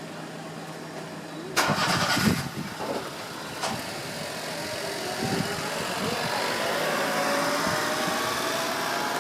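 A motor vehicle engine starting with a sudden loud burst about a second and a half in, then running with a slowly shifting pitch.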